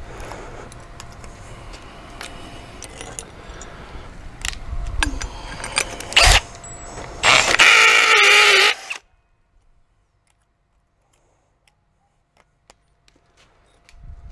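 Tools and hardware being handled, with rattles and clicks, then a cordless drill run briefly with a whine for about a second and a half.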